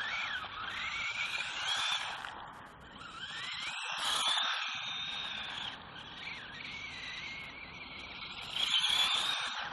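HBX Ratchet 1/18 4WD electric RC buggy's motor and gears whining, the pitch rising and falling in several surges as the throttle is worked over rough ground.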